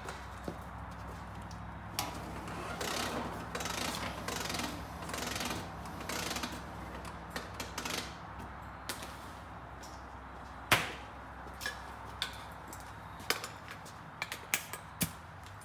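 Objects being handled: scattered clicks and knocks, with rustling between about two and seven seconds in and one sharp knock, the loudest sound, a little past the middle, over a low steady hum.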